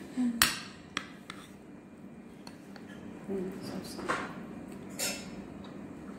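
Metal spoon knocking and scraping against a plate of rice and fish during a meal: a sharp clink about half a second in, then softer scrapes around four and five seconds.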